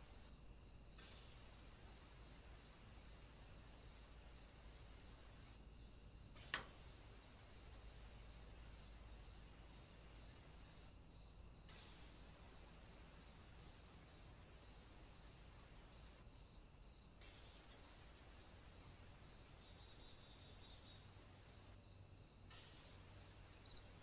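Faint insect chorus, crickets or bush crickets stridulating: a steady high buzz with a regular pulse, a little under two a second. A single sharp click comes about six and a half seconds in.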